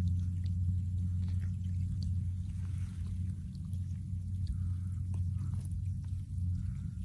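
An engine running with a steady low drone, with a few faint ticks and clicks on top.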